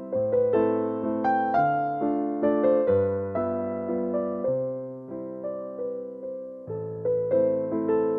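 Background music of electric piano playing gentle chords, each struck and left to fade.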